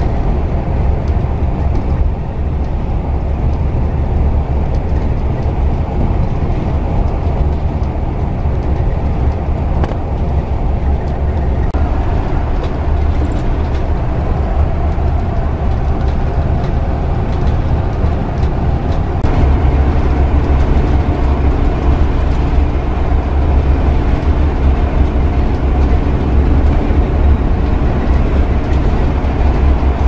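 Steady road and engine noise heard inside a moving motorhome's cab: a continuous low rumble with hiss above it. The hiss grows a little brighter about two-thirds of the way through.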